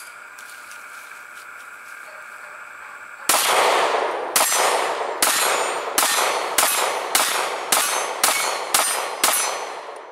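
Glock 26 9mm subcompact pistol firing ten shots, the first about three seconds in. The shots come about a second apart at first and speed up to about two a second, emptying its ten-round magazine.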